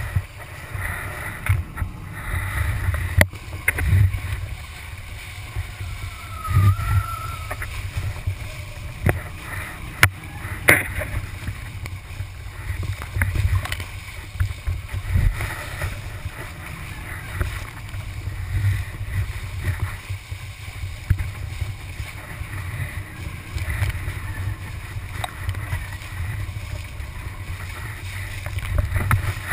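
Kiteboard skimming and slapping over sea chop with wind buffeting the microphone: a constant low rumble broken by irregular thumps and splashes.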